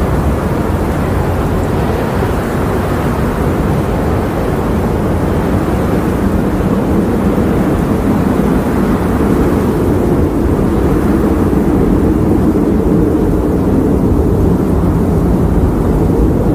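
Strong sandstorm wind blowing, a steady low rumble that does not let up.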